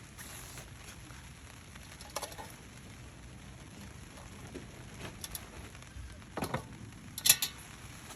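Light rain pattering steadily, with four short sharp clicks and knocks, the loudest near the end.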